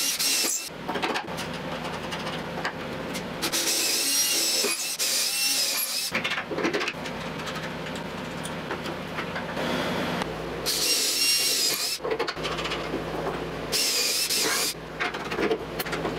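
Cordless drill running in three bursts, the first about two seconds long and the next two shorter, drilling holes through a wooden chain mount, with knocks and scraping of handling between the bursts.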